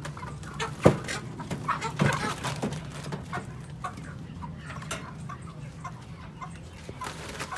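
Chickens clucking in short, scattered calls, with a sharp knock about a second in and another about two seconds in, over a steady low hum.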